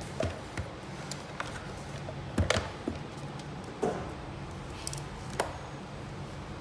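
Oscilloscope probe and alligator-clip leads being handled and unclipped: a handful of small scattered clicks and taps, the loudest about two and a half seconds in, over a steady low hum.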